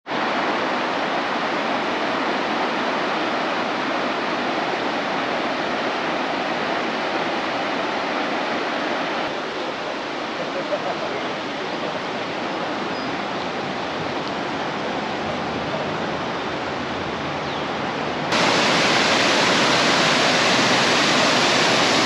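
Steady rushing roar of a waterfall, an even hiss of falling water with no pitch to it. It drops slightly about 9 seconds in and jumps abruptly louder and brighter about 18 seconds in.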